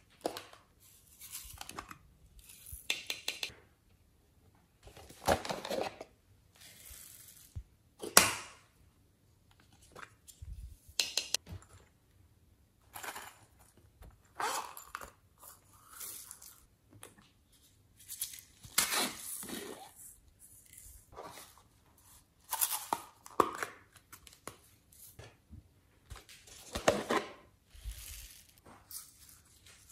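Small plastic containers and plastic bags being opened, squeezed and emptied of glitter and foam beads into a glass tray: irregular crinkling, rustling and clicking, with one sharp snap about eight seconds in.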